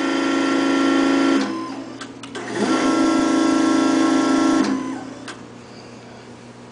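REXA Electraulic actuator's self-contained, motor-driven hydraulic pump running twice as the drive strokes down and back up, each run a steady whine of several tones lasting about two seconds. It shuts off shortly before five seconds in, when the drive reaches position.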